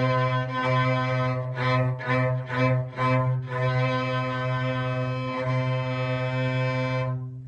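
Cello and violin bowing the note C together in a beginner string exercise. A run of short re-bowed notes is followed by one long held note that stops near the end.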